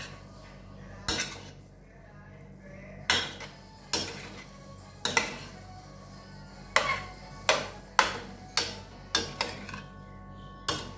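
A metal spoon knocking and scraping against a stainless steel pan while stir-frying rice noodles, about ten sharp clanks at irregular intervals, coming closer together in the second half.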